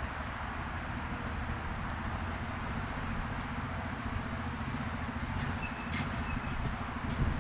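A large vehicle's engine running steadily at low revs: a low rumble with a fast, even beat.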